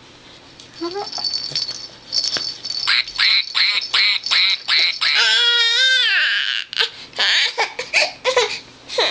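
Baby squealing and babbling: a run of short, high sounds at about four a second, then one long high squeal a little past five seconds in that falls in pitch at its end, followed by more short squeals.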